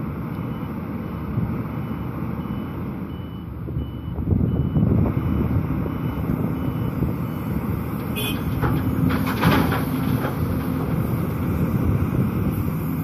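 Hidromek HMK 300 LC-3 crawler excavator running under load, with a reversing alarm beeping steadily until about six seconds in as the dump truck backs into position. About eight seconds in, a bucket of wet soil is dumped into the truck's steel bed, giving a short clatter over the engine noise.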